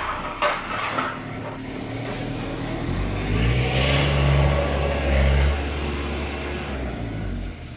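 Heavy vehicle engine running, revving up about three seconds in and settling back after about five seconds, with a couple of knocks early on.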